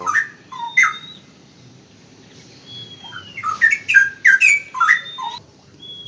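Straw-headed bulbul (cucak rawa) singing: a short burst of quick whistled notes at the start and a longer one from about two and a half seconds in, with a drawn-out whistle falling in pitch near the end.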